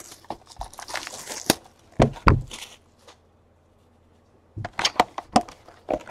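Hands handling a cardboard trading-card box: rustling and clicks, two thumps about two seconds in, a short lull, then sharp taps and crinkling near the end as the box is opened.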